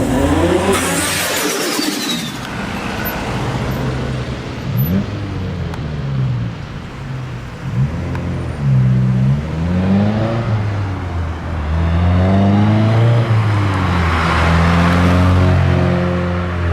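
Honda CRX's B16A 1.6-litre VTEC four-cylinder engine being revved again and again, its note rising and falling, with a loud rushing burst about a second in.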